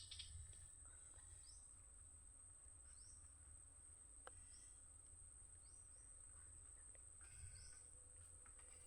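Near silence: faint outdoor background with a steady high-pitched whine and short rising chirps about once a second, over a faint low rumble.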